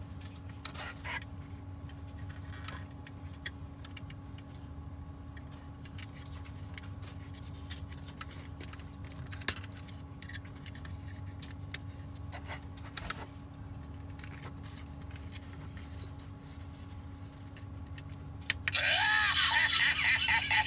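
Scattered light clicks and taps of handling over a steady low hum, then, about two seconds before the end, a loud electronic sound effect with gliding, voice-like tones starts playing from the MP-43 Beast Wars Megatron sound feature.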